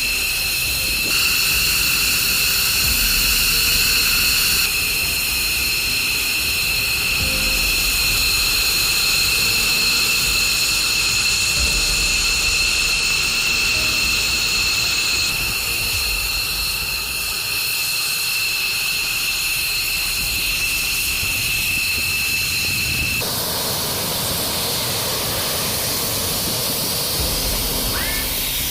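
Fighter jet engines running with a steady high-pitched whine over a rushing hiss. The sound changes abruptly several times, as one edited shot gives way to the next.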